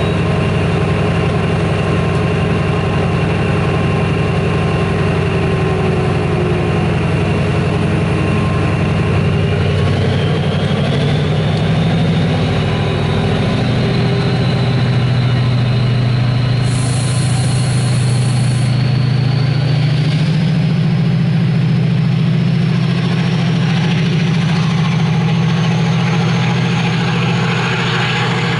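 Class 68 diesel locomotive's Caterpillar V16 engine running at a standstill, then powering up as the loco pulls away with its coaches. The engine note steps up about ten seconds in, and a whine climbs steadily in pitch as the train gathers speed. A two-second hiss comes a little past halfway.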